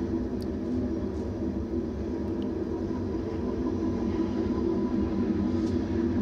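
Train passing: a steady rumble with a low hum, getting a little louder near the end.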